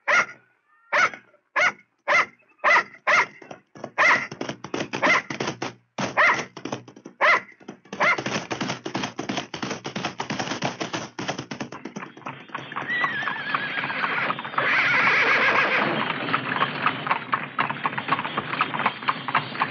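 A dog barking repeatedly, about twice a second, for roughly the first eight seconds. After that comes a dense, continuous rush of noise that grows louder midway.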